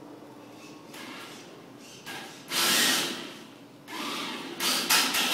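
Tamiya TB02D RC drift car's tyres scrubbing and sliding on a polished marble floor in several hissing bursts, the loudest about two and a half seconds in and a run of them in the last second and a half.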